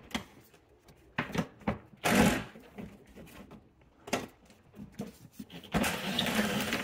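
Cordless driver with a long extension and 10 mm socket running in two short spells to back out a bolt, the first about two seconds in and a longer one of about a second near the end. Before them come a few clicks of the socket being fitted onto the bolt.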